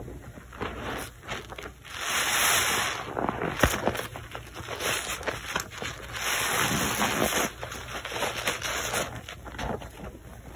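Rubber-gloved hands squeezing and kneading soaked soap in thick foamy water: wet squelching and crackling lather, with two longer, louder squeezes about two and six seconds in.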